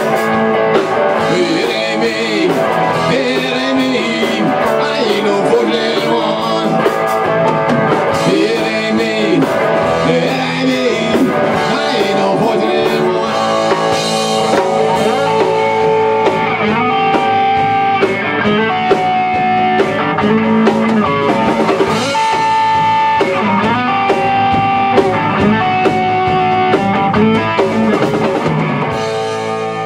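Rock band playing an instrumental passage live: electric guitars, bass guitar and drum kit, with a guitar holding long, slightly bending notes through the second half.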